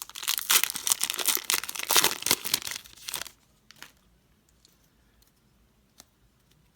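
Wrapper of a trading card pack being torn open and crinkled, a loud dense crackling that stops about three seconds in, followed by a few faint clicks of cards being handled.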